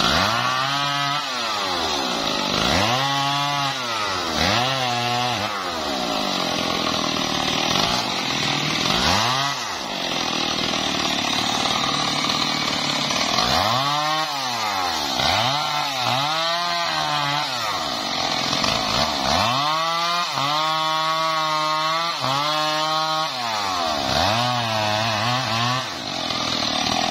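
Stihl chainsaw cutting through a felled tree trunk. The engine revs up and drops back again and again, with a steadier stretch at high revs partway through.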